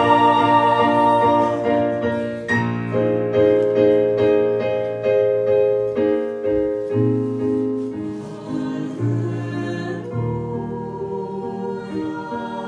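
Mixed choir singing a Polish Christmas carol (kolęda) with instrumental accompaniment. In the middle the voices drop out for a few seconds while the accompaniment plays on with notes dying away one after another, and the singing comes back near the end.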